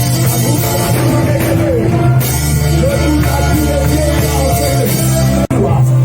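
Loud worship music from a band with drums, bass and singing voices, cutting out for an instant near the end.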